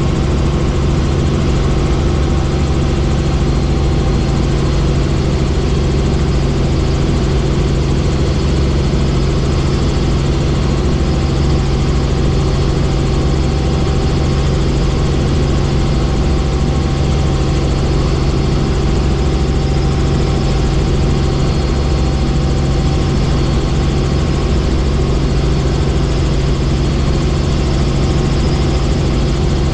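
Helicopter in flight: the engine and rotors run in a steady, unchanging drone with a strong low hum.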